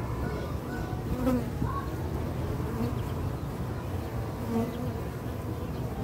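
Western honeybees (Apis mellifera) buzzing in a steady hum as they fly around an opened hive box during a colony transfer. Individual bees pass close now and then with brief, louder hums.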